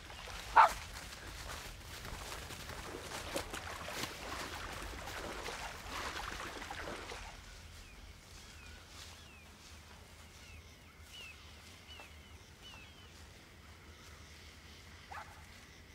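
A dog yelps once, sharp and loud, about half a second in. Several seconds of rustling movement through brush follow, then a quieter stretch with faint short high chirps and another brief yelp near the end.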